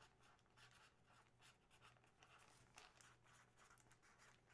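Near silence: faint room tone with a low hum and a few soft scratchy ticks.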